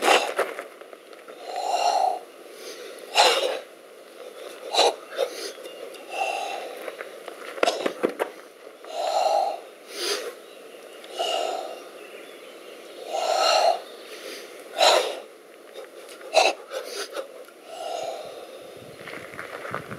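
A group's forceful, rhythmic breathing during a White Crane exercise for explosive power. Short sharp exhale bursts alternate with longer, breathier exhaled sounds, repeating every couple of seconds.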